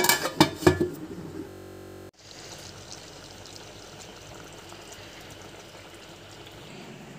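A few sharp metallic clinks of a utensil against the steel cooking pot, then an abrupt break about two seconds in, followed by a steady hiss of the curry simmering in the pot.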